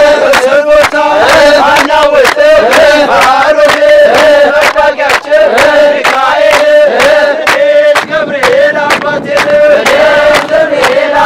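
Crowd of men singing an Ethiopian Orthodox mezmur (hymn) together in call-like chanting, with steady hand clapping, two or three claps a second.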